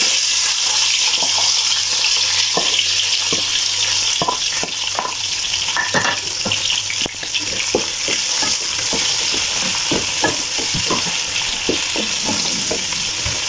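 Sliced red onions hitting hot oil in a deep pot, setting off a steady sizzle with scattered pops and crackles as they begin to fry. Near the end they are stirred with a wooden spatula.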